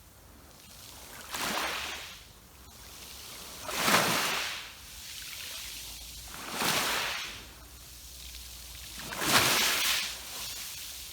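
Sea waves breaking against rocks. There are four surges about two and a half seconds apart, each swelling and then falling back into a softer wash; the second and fourth are the loudest.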